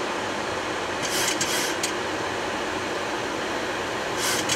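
Steady rushing of air and air-conditioning noise inside a Boeing 737-800 flight deck on final approach with the gear down and flaps at 30. Two short hissing bursts come about a second in and again near the end.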